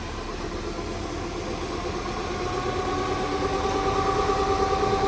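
Rear differential of a 2020 Ford Mustang EcoBoost whining over the car's running noise: a steady whine at an even pitch that grows louder from about halfway. The constant whine marks a failing differential, which the owner likens to bad bearings.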